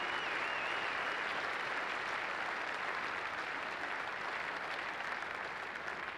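A large crowd applauding, a dense steady clatter of clapping that eases slightly toward the end. A thin wavering whistle rises over it in the first second.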